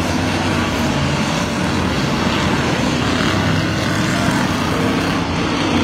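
Engines of several Ford figure-8 race cars running together as they lap the track, a loud, steady mix of engine noise.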